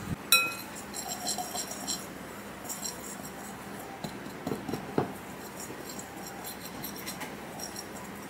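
A metal wire whisk stirring dry flour in a glass mixing bowl, its wires tapping and clinking against the glass at an irregular pace. The loudest strike comes just after the start and leaves the bowl ringing briefly.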